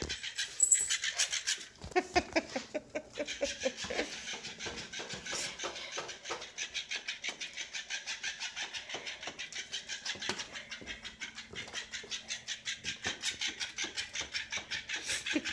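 Battery-operated flopping fish toy running, its motor humming and its tail flapping in a steady rhythm of about five beats a second, while a beagle puppy holds it in her mouth. A few short puppy grunts come in the first few seconds.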